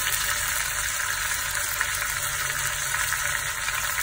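Boiled pork stomach shallow-frying in oil in a pan: a steady sizzle of bubbling oil as the meat crisps.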